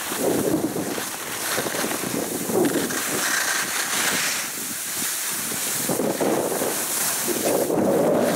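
Wind buffeting the microphone while skiing downhill, mixed with the hiss and scrape of skis carving on packed snow, swelling and easing unevenly through turns.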